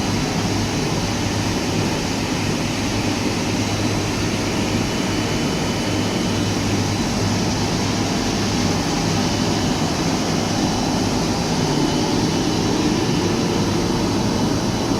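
Cable-making machinery running steadily on a factory floor, a continuous mechanical whir with a steady low hum and no changes.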